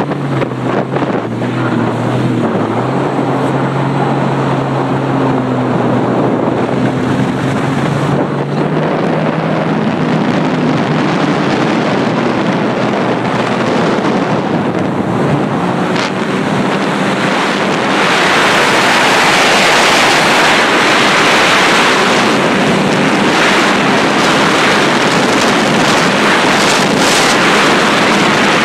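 Personal watercraft engine running as the jet ski speeds across the water, its pitch shifting in the first several seconds. Wind rushes on the microphone throughout and grows louder about two-thirds of the way through.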